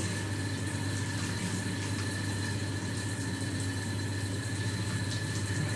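A steady low machine hum with thin high tones over it, unchanging throughout.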